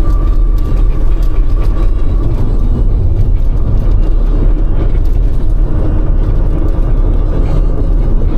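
Cargo van driving at speed, heard from inside the cab: a steady low rumble of engine and road noise.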